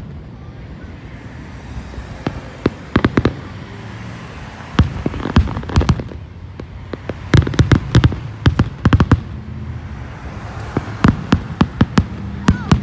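Aerial fireworks shells bursting: four volleys of rapid sharp bangs and crackles, with quieter gaps of a second or two between them.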